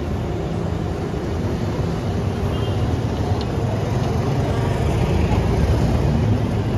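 Street traffic noise: a steady low rumble of vehicle engines, growing slightly louder toward the end.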